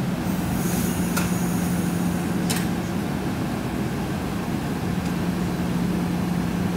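A stopped Amtrak passenger train idling at the platform: a steady low engine and equipment hum, with two short sharp clicks about a second in and again a second and a half later.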